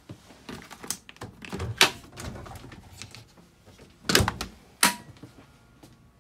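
Clicks and knocks of a small under-counter boat refrigerator door being unlatched, swung open and handled. The loudest are a heavy thunk about four seconds in and a sharp click just before five seconds.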